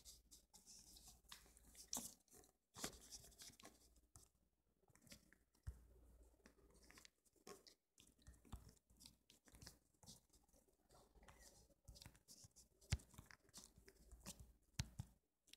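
Near silence with faint, irregular small clicks and rustles.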